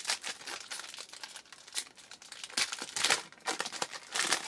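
Baseball card packs being handled: a run of short crinkling and rustling noises from the foil pack wrapper and the thin cards, loudest about three seconds in and again near the end.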